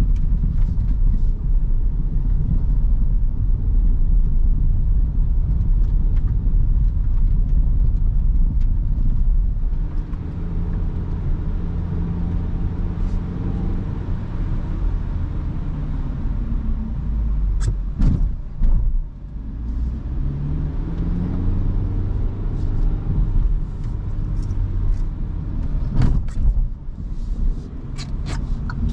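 Kia Rio 1.2 MPI heard from inside the cabin on a bumpy road: a loud, rough rumble of tyres and suspension over the uneven surface for the first ten seconds or so. After that the hum of the four-cylinder petrol engine comes through, rising in pitch as the car pulls away. There is a sharp knock about two-thirds of the way through and another near the end.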